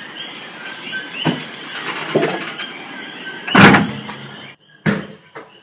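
A door being handled, with a few knocks and then a loud clattering rattle about three and a half seconds in. Faint, short, repeated chirping runs underneath.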